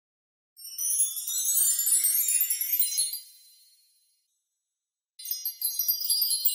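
Logo-intro sound effect of high, sparkling chime-like tinkles: a quick cascade of bell tones rising in pitch, dying away after a few seconds, then a second glittering burst about five seconds in.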